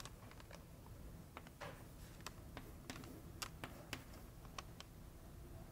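Chalk on a blackboard: faint, brief taps and short scratches, two or three a second at an irregular pace, as circles and numbers are written.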